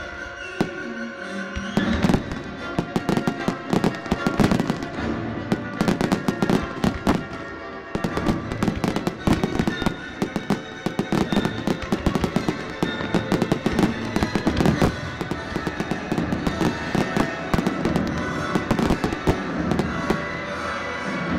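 Aerial firework shells bursting in a rapid, dense run of bangs and crackles, which thickens about two seconds in and eases briefly around eight seconds.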